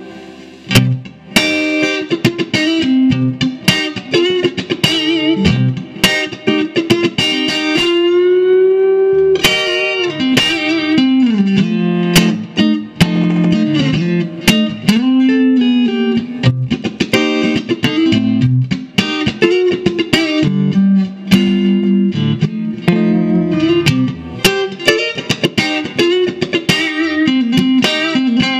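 1959 Fender Stratocaster electric guitar played through an amplifier: a steady run of picked notes and chords. About eight seconds in, one note is held with a wavering, bending pitch.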